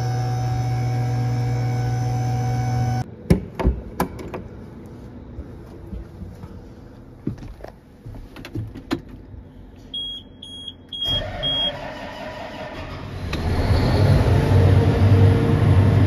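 A steady hum that cuts off about three seconds in, followed by scattered knocks and clicks. Then four short high warning beeps from a farm tractor's cab, and the tractor's engine starts and runs loudly by the end.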